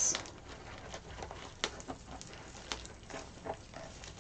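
Dry raffia strands rustling softly as they are wound by hand around a small fabric-covered pumpkin, with a few light ticks.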